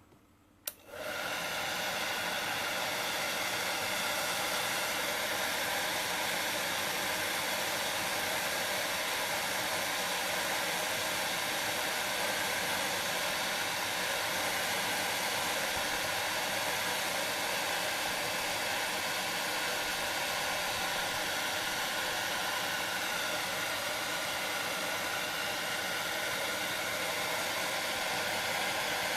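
Handheld hot-air blower switched on with a click about a second in, then running steadily: an even rush of air over a motor whine. It is drying freshly applied shoe glue on a sole edge.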